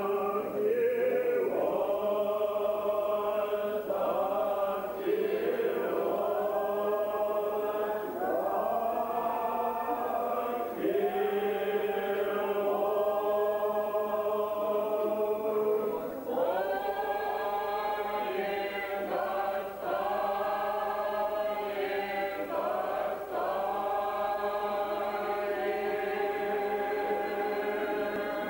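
Church choir singing Orthodox liturgical chant in long held notes, the phrases stepping and gliding between pitches every few seconds.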